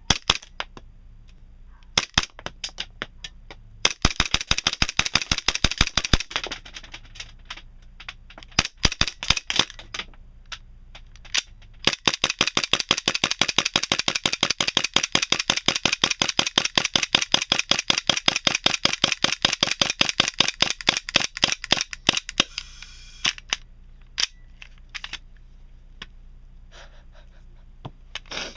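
KWA Glock 17 gas blowback airsoft pistol firing on green gas in fast strings of sharp shots, with a long run of several shots a second in the middle and scattered weaker shots near the end. Many of the shots are fired after the BBs have run out, with the slide having locked back, on the extra green gas left in the magazine.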